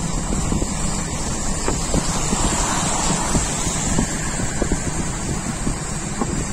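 Road noise of a moving vehicle on a wet road, with wind rumbling on the microphone and many small sharp knocks. A swell of hiss comes about halfway through.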